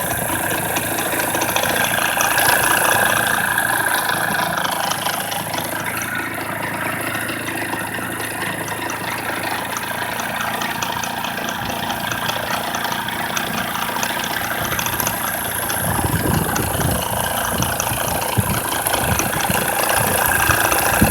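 Honda Dio AF34/35 scooter's 50cc two-stroke engine idling with a crankshaft rattle, the knocking clatter that marks a faulty crankshaft. From about sixteen seconds in, uneven low thumps join the steady running.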